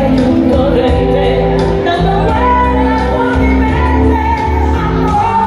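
Song playing: a wavering melody line, likely sung, over held bass notes.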